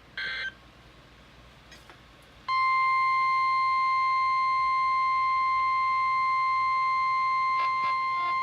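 NOAA Weather Radio warning alarm tone: a single steady electronic beep that starts abruptly about two and a half seconds in and stays loud and unchanging. It signals that a warning, here a tornado warning, is about to be read. Just before it comes a brief electronic chirp.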